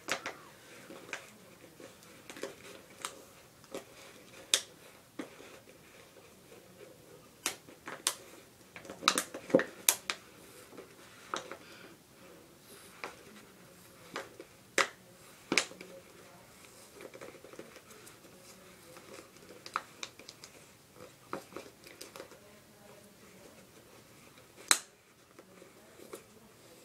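Electrical tape being pulled and wrapped around a bottle cap by hand, giving scattered sharp clicks and snaps at irregular intervals. There is a cluster of them around ten seconds in, and one loud snap near the end.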